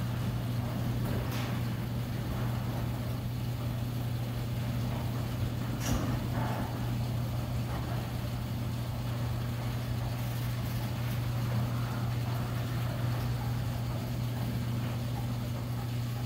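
LiftMaster H-model 3/4 hp commercial door operator running steadily with a low hum as it raises a sectional steel overhead door, with a few faint knocks from the moving door.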